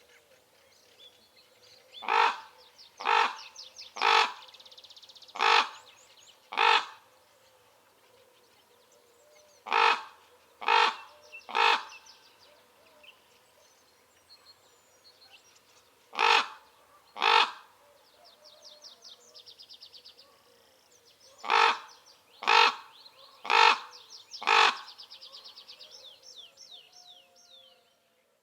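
Common ravens calling: loud, harsh croaks about a second apart, in runs of five, three, two and four. A faint high rapid trill can be heard between the runs.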